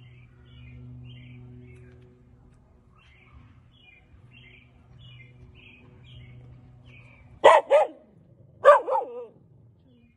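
A dog barking: two sharp barks about seven and a half seconds in, then a group of about three more a second later. Before the barks, faint bird chirps over a steady low hum.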